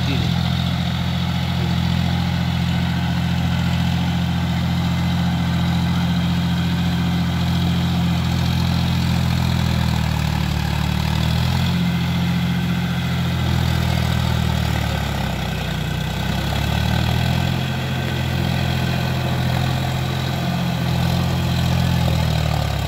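John Deere 5050D tractor's three-cylinder diesel engine running under load as it pulls an implement through a flooded paddy field. The engine note holds steady at first, then dips and rises several times from about the middle on.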